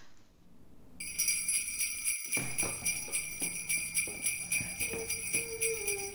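Jingle bells shaking in a fast, steady rhythm, starting about a second in.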